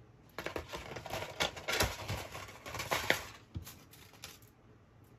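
Thin metal die-cutting dies clinking and rattling against each other as they are sorted by hand: a string of light clicks and rustles that stops near the end.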